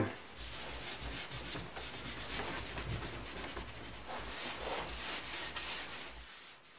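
A wiping pad rubbing dark blue paint into a wooden picture-frame molding, in quick back-and-forth strokes of about one and a half a second. It stops near the end.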